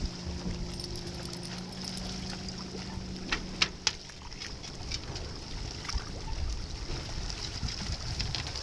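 Lake water trickling and sloshing as a wet dog climbs out over a stone wall. A steady low boat-motor hum runs underneath and stops about three and a half seconds in, and a few sharp clicks come just before it stops.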